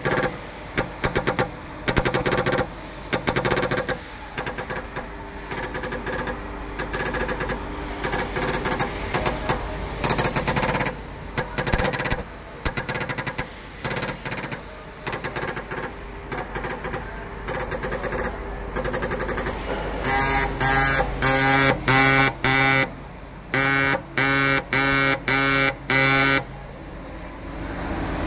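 Pneumatic dot pin marking machine stamping characters into a cast aluminium part: the stylus hammers rapidly in a buzzing rattle, in short bursts with brief pauses between characters. It stops near the end.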